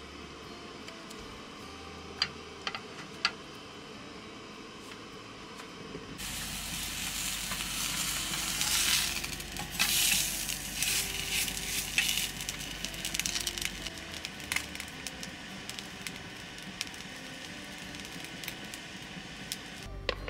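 Food frying in a hot pan, starting with a sudden sizzle about six seconds in. It crackles loudest for a few seconds, then settles to a steadier sizzle. A few light clicks come before it.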